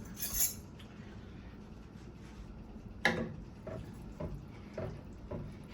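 Kitchen utensil sounds at a cooking pot: a short rustling pour of dry seasoning just after the start, then a sharper clink about three seconds in and a few light knocks of a spoon against the pot.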